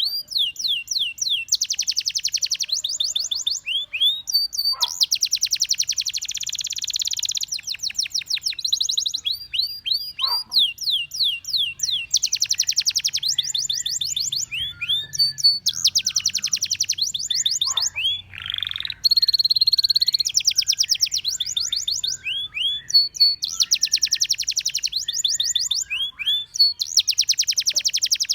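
Domestic canary singing a continuous song of fast trills, rapid runs of repeated high notes and sweeping whistles, with one steady held note about two-thirds of the way through.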